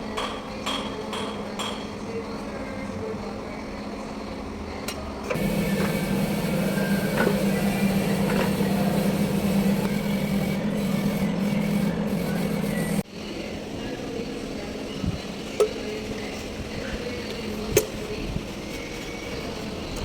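Kubota B1500 compact tractor's small diesel engine and drivetrain running with a steady hum. The hum gets clearly louder for several seconds in the middle, then drops abruptly. A couple of sharp clicks come near the end.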